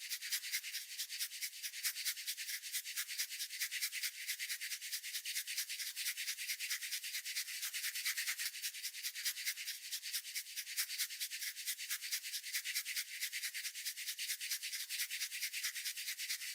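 Rapid, even scratching or rubbing, many quick strokes a second, with a thin, bass-less sound.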